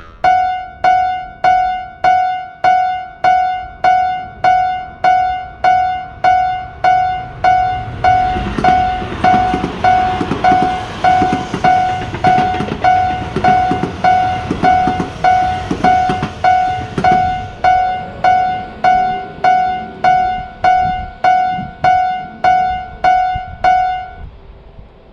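Japanese railroad crossing warning bell ringing, one ding repeated evenly at about three strikes every two seconds, with a train running past through the middle. The bell stops near the end.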